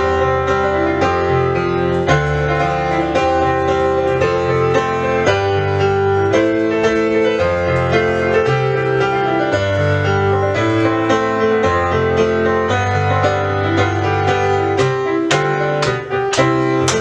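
Recorded piano music with a steady rhythm and a moving bass line, turning to a series of sharp, bright strikes near the end.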